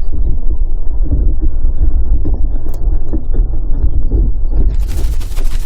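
Loud, heavy low rumble of a car being driven, heard through a body-worn camera's microphone, with irregular thuds of wind or handling noise on the mic. A crackling hiss comes in near the end.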